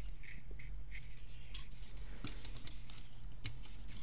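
Hands handling a plastic Gundam model kit: faint scattered clicks and rubbing of the plastic parts, over a steady low hum.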